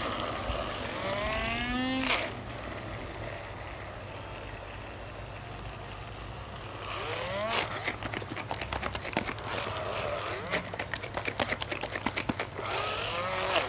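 Portable battery-powered blender bottle running on a smoothie, its motor whine rising in pitch three times, each rise ending in a sharp click. Between about 8 and 13 seconds in there is a stretch of rapid clicking and rattling.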